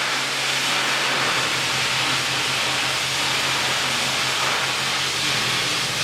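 Milling machine machining a steel stamping die: a steady, loud hiss of cutting with a constant low hum from the machine underneath.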